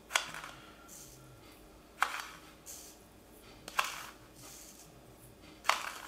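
A metal teaspoon scooping nitrite curing salt out of a small plastic tub and sprinkling it into a stainless steel mixing bowl: four sharp clicks of the spoon, about two seconds apart, with a soft hiss of salt grains falling in between.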